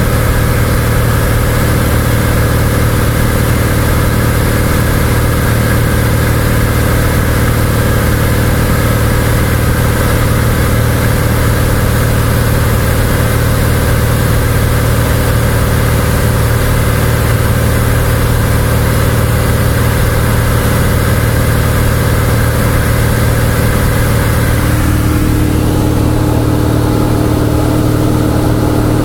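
Cessna 172's piston engine and propeller droning steadily in cruise flight, heard loud inside the cabin. About 25 seconds in, the tone of the drone shifts slightly lower.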